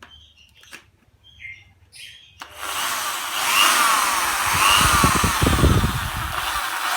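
Faint bird chirps, then about two and a half seconds in an electric power tool starts up and runs loud, its whine wavering up and down about once a second, with a heavier low rumble joining later. The tool is likely running through a homemade AC dimmer speed controller.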